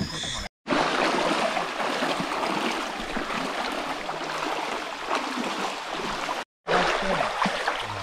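Water trickling and gurgling with a fine steady crackle, cut to silence twice for a moment, about half a second in and near the end.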